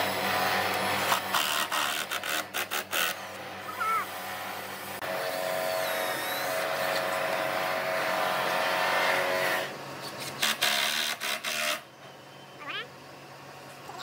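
Hitachi cordless drill working into wood. It is run in short trigger bursts, then held running steadily for about five seconds from around five seconds in, then pulsed in short bursts again before it stops.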